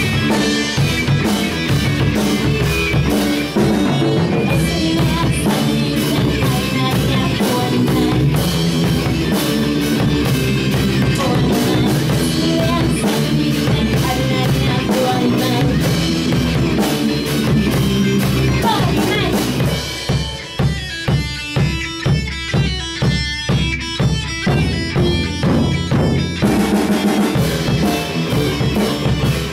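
Rock band playing live: drum kit, electric guitar and a singer on a microphone. About twenty seconds in, the band breaks into short, evenly spaced hits played together for around six seconds, then comes back in at full.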